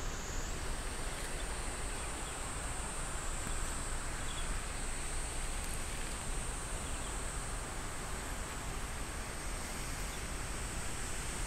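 Outdoor ambience: a steady hiss with a continuous high-pitched insect buzz over it.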